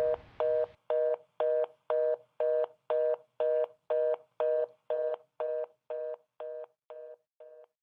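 Telephone fast busy signal: a two-note tone beeping on and off about twice a second, fading out over the last couple of seconds.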